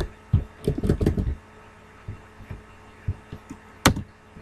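Computer keyboard keystrokes: a quick cluster of dull thuds in the first second and a half, then a few light ticks and one sharp click near the end, over a faint steady hum.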